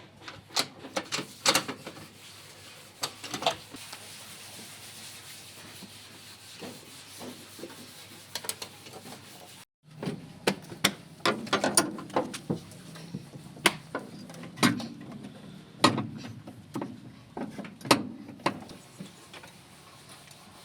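Irregular sharp metallic clicks and knocks of hand tools at work on a vehicle's fuel pump, with a brief break a little under halfway through; the later knocks are heavier and duller.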